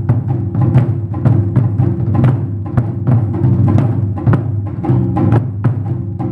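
Taiko drums played by several drummers in rapid, closely spaced strikes. The deep drum tones ring on between the hits.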